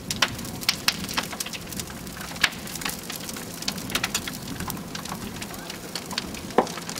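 Large fully involved kitchen fire burning, a steady rush of flames with dense, irregular crackling and popping and a sharper pop near the end.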